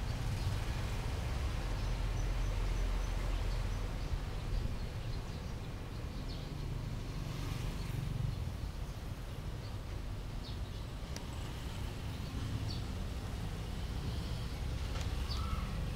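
Small birds giving faint, scattered short high chirps over a steady low outdoor rumble.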